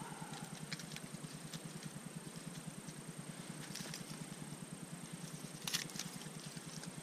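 Faint scattered ticks and light crackles of dry wooden feather sticks and shavings being handled and laid onto a fire lay, with one sharper click near the end, over a steady low hum.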